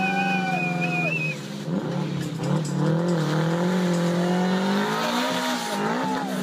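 Volkswagen Type 2 split-screen double-cab pickup doing a burnout: the engine is held at high revs, its pitch wavering, dipping briefly and then climbing before falling off near the end. Over it a high tyre squeal fades out about a second in, and the spinning rear tyre gives a steady hissing scrub.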